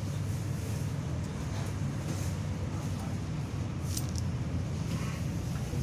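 Steady low background rumble with a few faint clicks about four seconds in.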